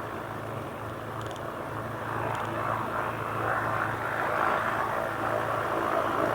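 The twin piston engines of a Cessna 310 running steadily at low idle power, a low even hum that grows slightly louder a couple of seconds in.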